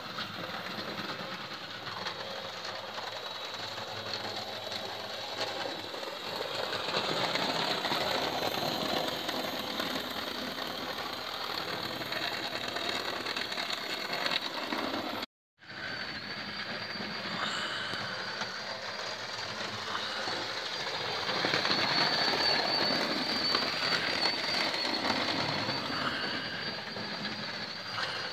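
Electric model trains running on a Hornby OO gauge layout: motors whining and wheels clattering steadily on the track. The sound cuts out completely for a moment about halfway through. After that a steady high whine runs under the clatter.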